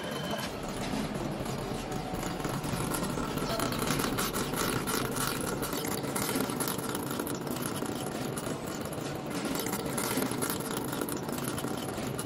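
Machine-shop noise: machinery running steadily, with scattered clanks and clatter.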